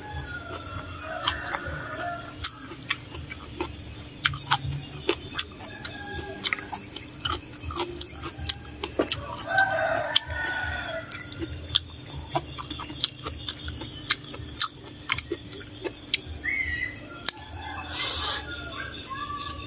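Chickens clucking now and then in the background, over close-up eating sounds: many sharp wet chewing clicks, and a loud slurp of noodles near the end.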